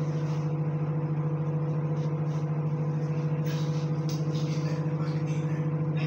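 Microwave oven running: a steady electrical hum.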